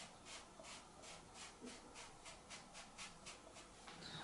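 Makeup sponge rubbing dark grey PanPastel onto Pastelmat paper in quick, even, faint strokes, about four a second, stopping shortly before the end.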